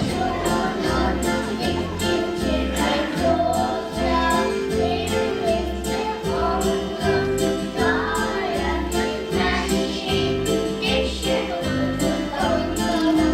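A group of children singing a song together over musical accompaniment with a steady beat.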